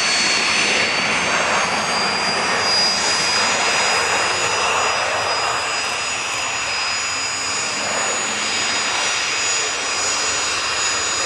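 Jet engines of taxiing aircraft at low power: a steady high-pitched turbine whine over a broad rush, from a small business jet rolling close past and an Airbus A350-941 taxiing behind it.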